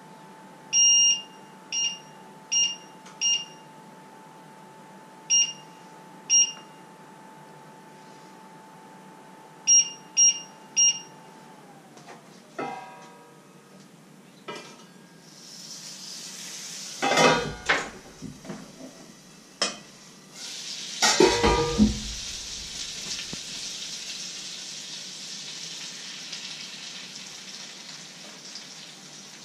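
Short electronic beeps, nine in the first eleven seconds, as the electric stove's controls are pressed, over a faint hum that drops in pitch and stops about twelve seconds in. Then a metal pan lid and frying pan clatter and knock, and from about sixteen seconds on, a steady sizzle from the hot frying pan.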